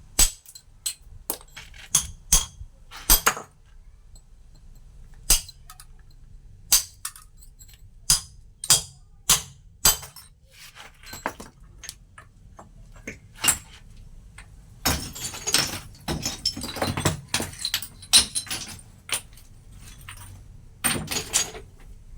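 Metal chisel struck against stone while carving a stone mortar (cobek): sharp, irregular clinking strikes, with a quicker run of blows about two-thirds of the way through and a short burst near the end.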